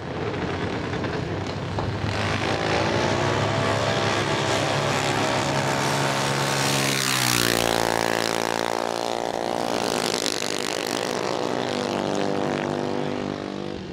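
Two junior dragsters' single-cylinder engines running at full throttle down the drag strip. The engine note holds high and steady, then drops in pitch about seven seconds in as the cars pass, and runs on lower as they go away down the track.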